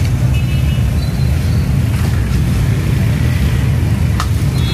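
Steady, loud, low rumble of the burner flame firing the frying karahis, with a few faint clicks and short metallic tones on top.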